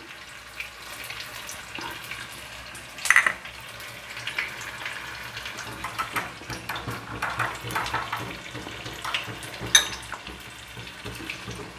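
Hot mustard oil sizzling steadily with a tempering of bay leaf, kalonji and chillies frying in it, while a metal spoon stirs mustard paste in a glass bowl, clinking sharply against the glass about three seconds in and again near the end.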